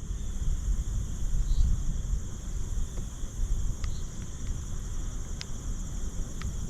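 Insects trilling steadily in a high, even chorus, over a low rumble, with a few faint ticks in the second half.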